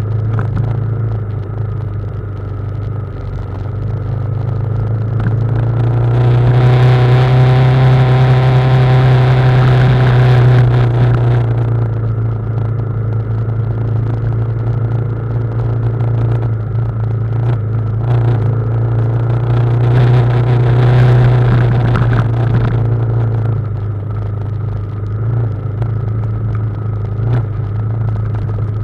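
Adventure motorcycle engine running at low, fairly steady revs on a downhill dirt-trail descent. The pitch drops just as it begins. A louder rush of noise joins in from about 6 to 11 seconds in.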